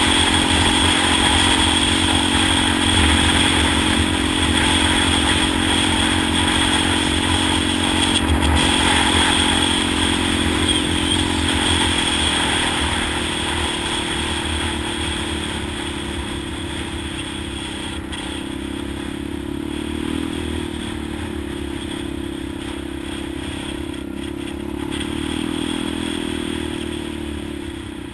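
Polaris off-road vehicle's engine running steadily while driving over a bumpy dirt trail, with a few knocks. About halfway through, the engine note drops a little and gets quieter as it eases off.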